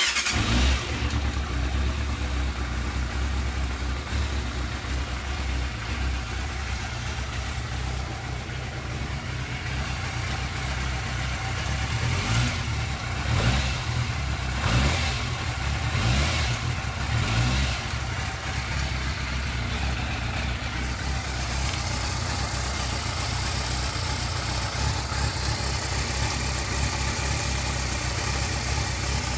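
Yamaha YZF600R Thundercat's inline-four engine starting up at the very beginning and running steadily, with a few brief rises in revs about halfway through. It runs with none of the cam-chain ticking it used to make on start-up, which the owner puts down to the cleaned cam chain tensioner; it "seems" cured.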